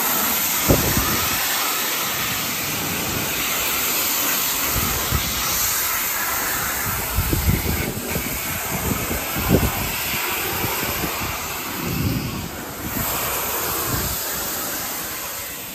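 Pressure washer spraying water through a wide fan tip at light pressure, rinsing wood restorer off a wooden fence: a steady hiss, with a few short low knocks.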